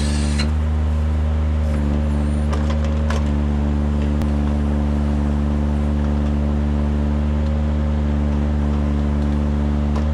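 Kranman Bison 11 000 forwarder's engine running steadily while its crane swings the Jobo ST35 harvester head across, with a few light clicks from the crane and head.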